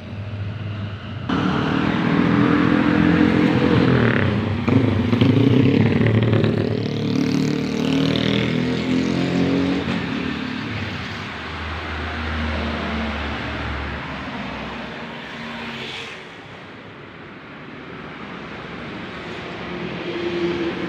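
Motorcycle engine revving, its pitch rising and falling. It cuts in abruptly about a second in, is loudest through the first half, then fades away.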